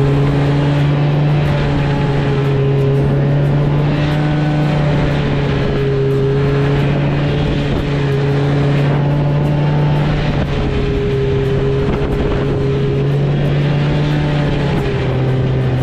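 Snowmobile engine running at a steady speed, a constant low hum with only slight changes in pitch.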